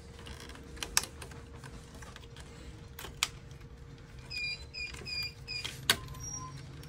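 Clicks and knocks of plastic connectors and printer parts being handled, with a quick run of four short, high squeaks about four seconds in.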